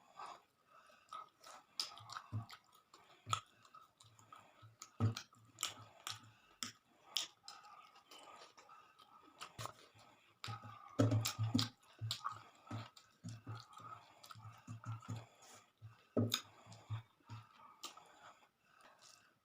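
A person chewing food close to the microphone, with wet mouth clicks and smacks over runs of steady chewing.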